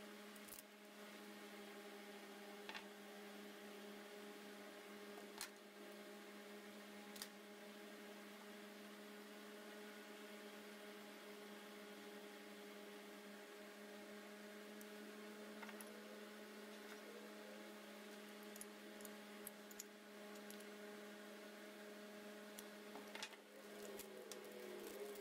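Near silence: a steady faint hum, with a few faint clicks scattered through it and a small cluster of them near the end.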